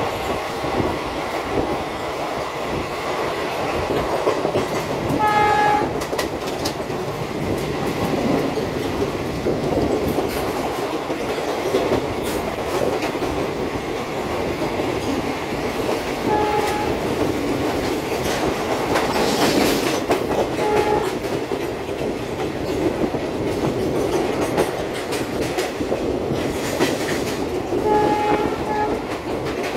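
Running noise of an express passenger train heard from its open doorway, wheels on rail, as it passes a freight train of covered wagons on the next track. A locomotive horn gives short toots about five seconds in, twice in the middle, and a longer one near the end.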